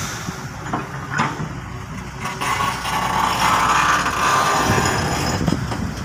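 Diesel engines of heavy earthmoving machinery running at a road construction site, with a few sharp knocks; the engine noise grows louder about halfway through.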